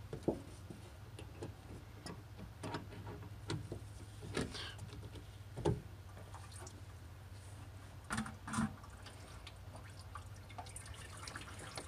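Scattered light clicks and knocks of a hand working among the hoses, fittings and plastic shroud behind a pickup truck's radiator, a close pair of knocks about eight seconds in, over a steady low hum.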